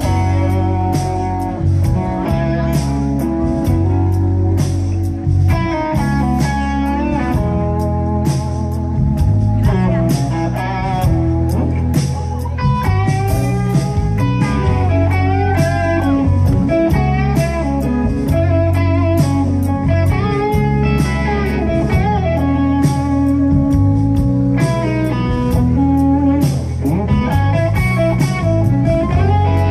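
Live rock band playing an instrumental passage: an electric guitar plays a lead with bent notes over electric bass and a steady drum beat.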